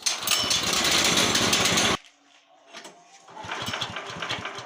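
Small engine of a band sawmill running loudly with a fast pulsing beat, then cutting off abruptly after about two seconds. It runs again more quietly about a second and a half later.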